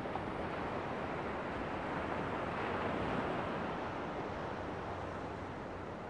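Sea waves washing up on a beach, a steady rush of surf that swells about halfway through and then eases off.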